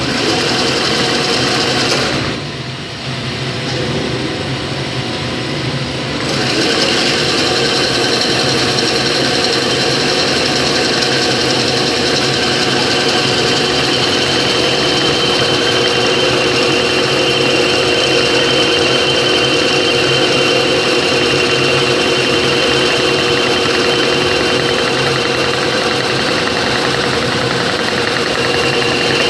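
Welding electrode production machinery running continuously: a loud, dense mechanical clatter with steady whining tones. It drops for a few seconds about two seconds in, then comes back fuller and carries on steadily.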